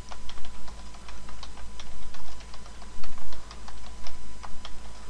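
Typing on a computer keyboard: quick, irregular keystrokes, several a second, over a steady low hum.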